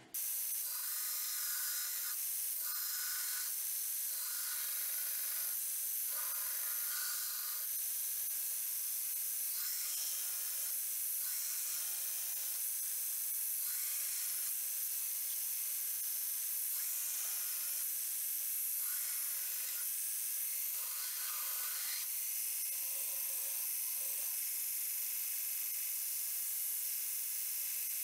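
Belt grinder running with a steady high whine while a forged 1080 high-carbon steel knife blank is ground against the belt, the grinding noise swelling with each pass of the blade as the profile is cleaned up.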